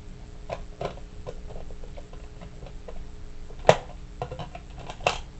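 Lego bricks of a puzzle box clicking and rattling softly as they are handled and adjusted, with one sharper click a little past three and a half seconds in.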